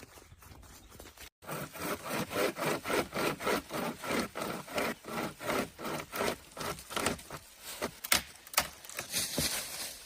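Hand saw cutting through wood in steady back-and-forth strokes, about three a second, starting abruptly about a second and a half in.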